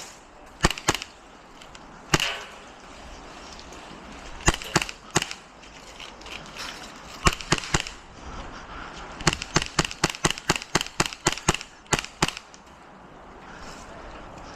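Airsoft guns firing: scattered single pops and short groups, then a longer quick string of shots, about four or five a second, in the second half.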